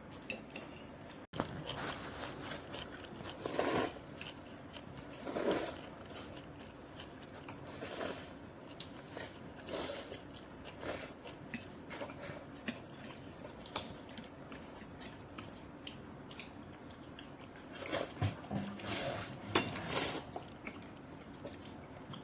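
A person eating cream pasta close to the microphone: chewing and mouth noises, with a few louder short bursts of slurping or scraping at irregular intervals.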